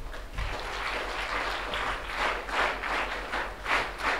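Audience applauding, the clapping starting about half a second in.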